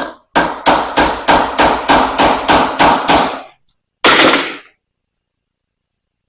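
Hammer striking a roll pin punch to drive in the roll pin that holds the return spring of a 20-ton Porta Power hydraulic ram. One strike, then a quick even run of about ten sharp strikes at about three a second, and one last strike after a short pause.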